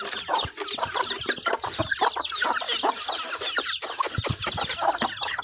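Chickens at feeding time: many chicks peeping in quick, high chirps over hens clucking, with scattered short clicks.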